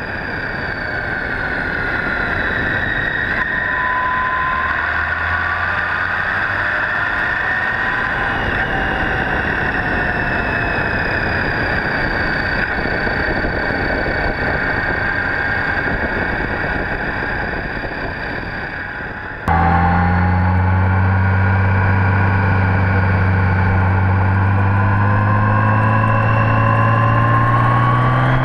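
Honda GL1800 Gold Wing flat-six engine running at road speed under a heavy rush of wind and road noise, its pitch gliding up and down through the curves. About two-thirds of the way through the sound switches abruptly to a louder, steady low engine drone that slowly rises in pitch.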